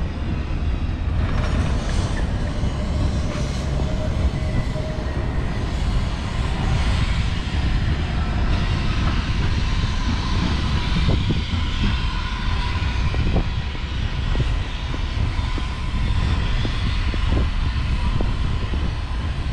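Steady rumble of city street traffic, a tram among it. A faint steady whine joins about halfway through.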